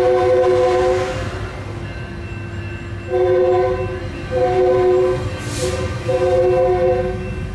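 Metrolink commuter train passing with a low rolling rumble, while its multi-note chord horn sounds four blasts: one at the start and three more in the second half. A brief hiss comes between the last two blasts.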